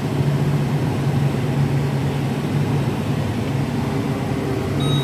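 Case IH Magnum 340 tractor's diesel engine running steadily in gear while pulling a plough, a constant low drone. A short high beep sounds near the end.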